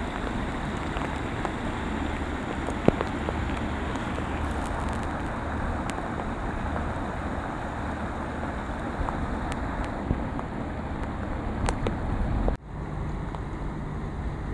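Muddy floodwater rushing along a washed-out street-side channel, mixed with wind buffeting the microphone. There is a single click about three seconds in, and the sound cuts out briefly a little past twelve seconds.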